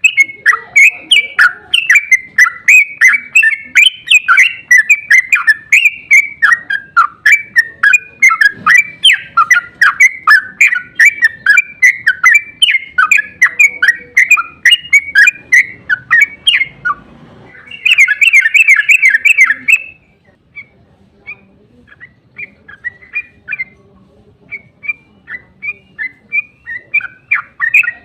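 Yellow-vented bulbul (trucuk) giving a long, fast chattering call series of loud repeated notes, several a second, with a denser rapid burst about two-thirds of the way through. The calling then drops to scattered quieter notes before loud chattering resumes near the end.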